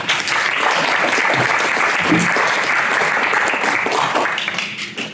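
An audience and the panel applauding, with dense steady clapping that dies down near the end.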